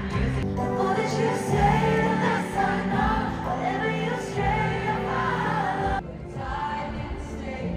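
Live stadium pop concert recorded on a phone: a woman singing over the band, with the sound cutting abruptly between clips about half a second in and again about six seconds in.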